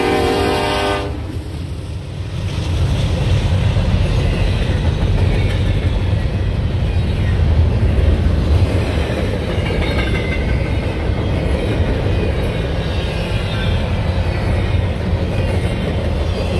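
Diesel freight locomotive horn sounding and cutting off about a second in, followed by the steady rumble of the intermodal train's locomotives and cars rolling past.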